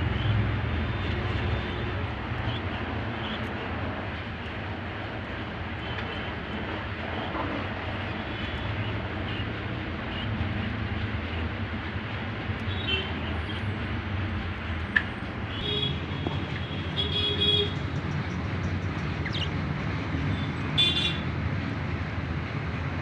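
A steady low background rumble like road traffic. In the second half a few short high chirps stand out.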